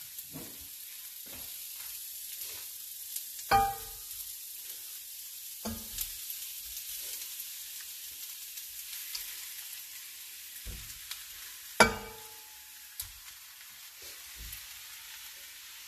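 Onion, coconut and spice mixture sizzling steadily in a stainless steel frying pan, with several knocks and ringing clinks as raw chicken pieces are slid off a plate into the pan; the loudest clink comes about twelve seconds in.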